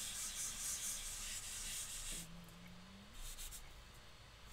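Block eraser rubbing across a whiteboard to wipe off marker writing, stopping about two seconds in.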